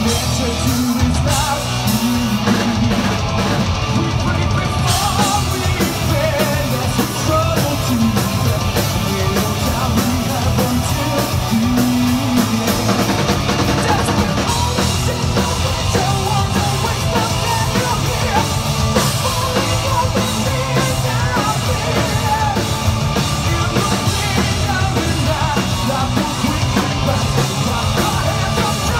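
Heavy metal band playing live and loud: a male singer singing into a microphone over a drum kit and electric guitar.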